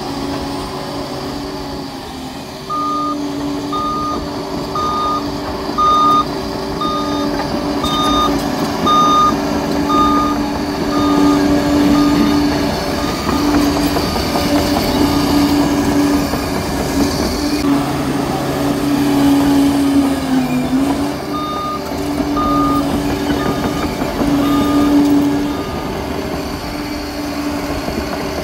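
Liebherr 746 crawler dozer's engine running steadily, with its reversing alarm beeping about once a second as the dozer backs up, in two spells. The engine note dips briefly between the spells.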